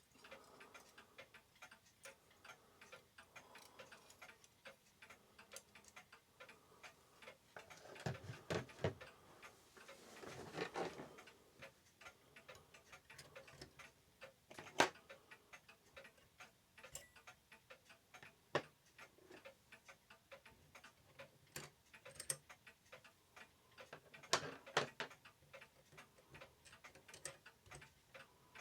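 Faint, steady ticking of a mechanical clock, with a few louder clicks and knocks of small metal parts and tools being handled on the bench.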